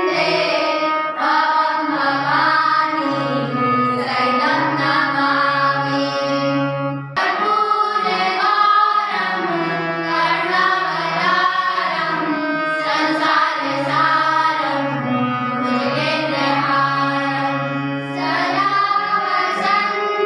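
A song: voices singing a melody over a steady low accompaniment, with a short break about seven seconds in.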